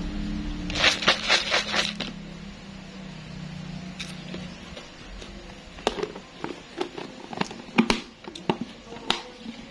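A seasoning bottle shaken over a jar in a quick run of about six sharp taps, then fried melinjo-skin chips clattering in irregular rattles inside a lidded plastic jar as it is shaken to coat them with the powder.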